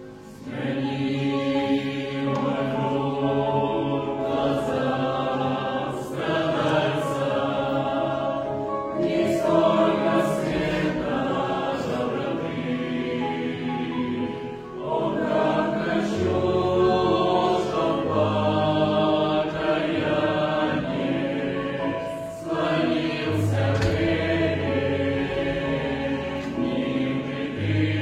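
Choral music: a choir singing sustained chords over a low bass, the chords changing every few seconds.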